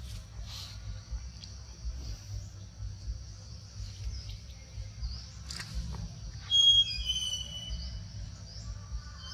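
A short high-pitched animal call, a few squealing notes about two-thirds of the way in, over a steady low rumble.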